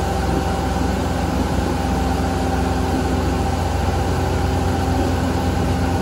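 Motorboat engine running steadily at speed, with water rushing and churning in the wake behind the stern.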